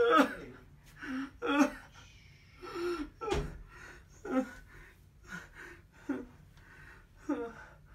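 A man sobbing in short, gasping, whimpering cries, roughly one a second, with a low bump about halfway through.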